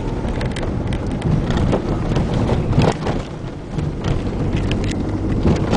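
Car cabin noise while driving over a rough, wet, broken road: a steady low rumble from the tyres and suspension with frequent knocks and rattles from the body.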